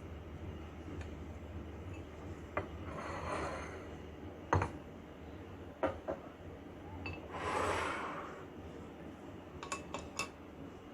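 Kitchen utensils and dishes clinking: a series of sharp knocks, several in quick succession near the end, and two short rushing or scraping sounds, about a second long each.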